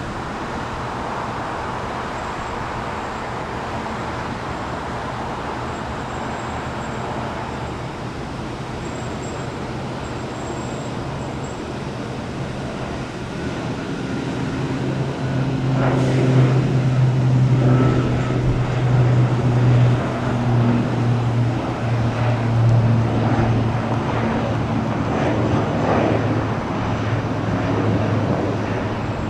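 Outdoor engine noise: a steady rumble, then from about halfway through a louder engine with a low hum that swells and fades until near the end.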